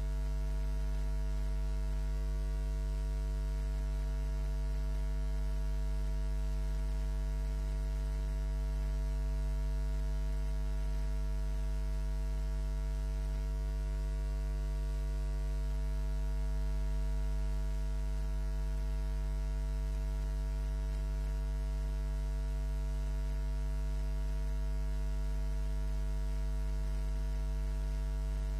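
Steady electrical mains hum with a buzzy edge and faint hiss, unchanging throughout.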